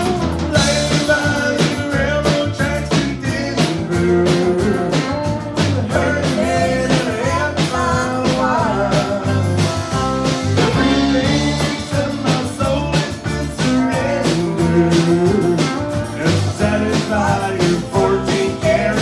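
Live country band playing: fiddle, acoustic guitar, electric guitar and drums together at a steady beat.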